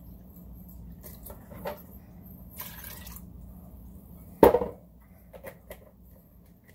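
Apple juice pouring from a plastic bottle into a glass measuring cup, with a short rush of liquid about three seconds in. About four and a half seconds in comes one loud knock as something is set down on the counter, then a few faint clicks.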